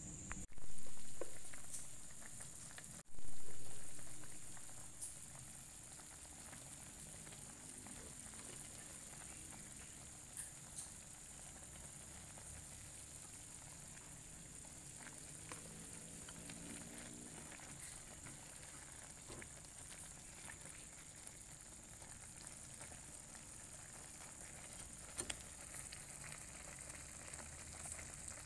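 Pot of soup with cassava leaves boiling, a steady bubbling and pattering with small scattered pops. Two louder swells come about half a second and three seconds in, each fading over a second or two.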